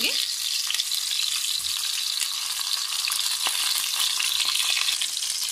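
Stuffed tinda gourds sizzling in hot mustard oil in a kadhai as they are set in to fry: a steady frying hiss with a few faint crackles.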